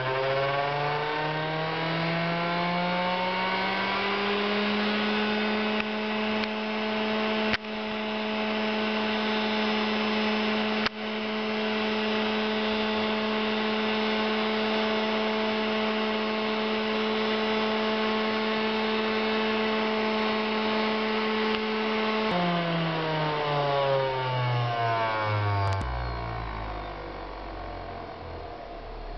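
Variable-speed electric motor spinning a wheel, its whine rising in pitch as it speeds up during the first few seconds, then holding steady near 13,000 rpm, and falling in pitch as it winds down over the last several seconds. Two sharp clicks are heard in the middle stretch.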